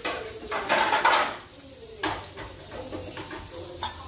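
Hands handling raw salmon fillets in a plastic tray: a rustling, shuffling stretch about a second in, then a sharp knock about two seconds in and a small click near the end.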